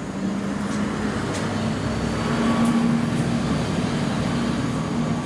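A motor vehicle's engine running close by with road traffic noise, a steady low hum that grows a little louder about halfway through and then eases slightly.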